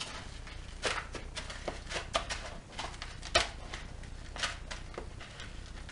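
Crushed crunchy coating crackling and rustling in a plastic tub as a piece of chicken is pressed and turned in it by hand, in short irregular crunches.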